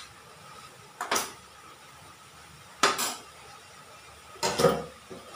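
Metal spatula scraping and knocking against a metal kadai as spinach is stirred: three short clatters about a second and a half apart, the last the loudest.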